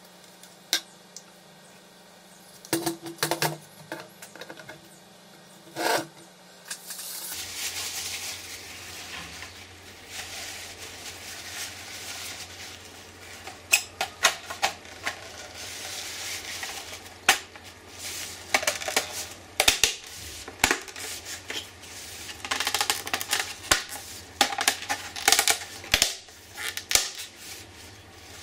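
Clicks of a small screwdriver working in the plastic instrument cluster housing, then a paper tissue rubbing over a gauge's plastic lens and bezel. Through this come frequent sharp clicks and knocks of the gauge being handled.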